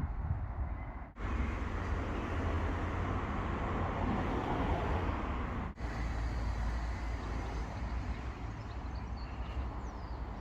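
Road traffic: a vehicle passing, loudest about four to five seconds in, over a steady low rumble. The sound cuts out for an instant twice.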